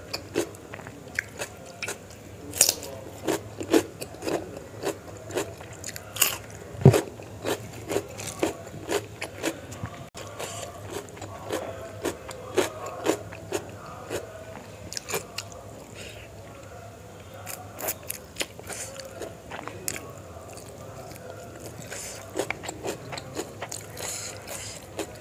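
Close-miked eating sounds: crisp crunching and chewing of raw cucumber, with many quick crunches in the first ten seconds, then softer, sparser chewing before it picks up again near the end.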